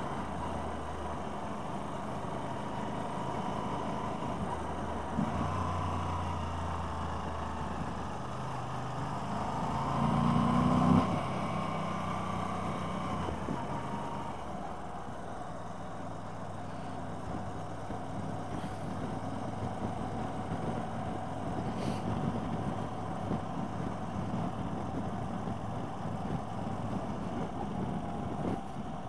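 Motorcycle engine running at road speed under a steady rush of wind noise. About ten seconds in it gets louder and climbs in pitch, then drops back sharply a second later, and runs lower and steadier through the rest.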